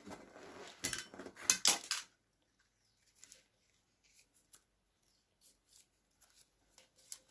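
Hands working with small parts and tools: a quick run of clicks and rattles in the first two seconds, then a few faint scattered ticks.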